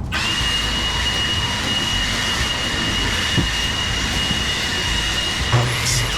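WoodMizer LT35 band sawmill blade cutting through an oak log: a steady high whine over a rushing noise, starting abruptly just after the start.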